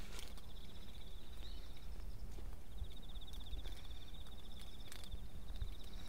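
An insect calling in the grass with a high, rapidly pulsing buzz that stops about two seconds in and starts again a second later, over a low steady rumble.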